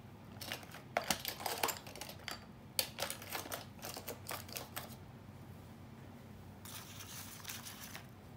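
A run of light clicks and clatters, like small hard objects being handled, spread over the first five seconds. Near the end comes about a second of scratchy rustling.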